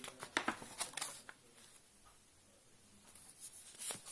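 Short, sharp rustles and clicks of something being handled, several in quick succession in the first second and a half and again near the end, with a quiet stretch in between.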